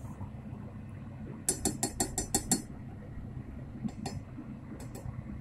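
A utensil clinking against a stainless steel saucepan: a quick run of about eight sharp clinks a second and a half in, then a few single clicks later on.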